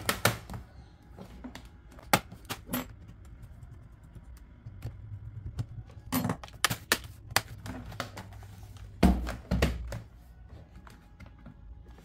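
Hands handling a Dell Latitude 3450 laptop's plastic bottom cover and a screwdriver: scattered sharp clicks and taps, a quick cluster of them around six to seven seconds in. About nine seconds in there is a heavier thump as the laptop is turned over and set down on the table.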